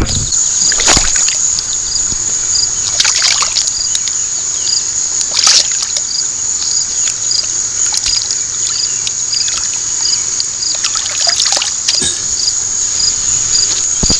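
Irregular water splashes every few seconds over a steady, high insect drone with an evenly repeating chirp about twice a second.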